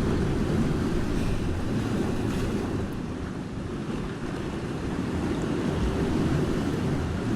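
Wind buffeting the microphone with a steady low rumble, over the wash of sea surf.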